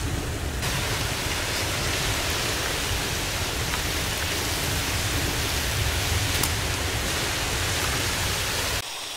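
Steamboat Geyser erupting: a steady rush of water and steam jetting out, with spray falling back like heavy rain. It turns brighter and hissier just under a second in and stops abruptly near the end.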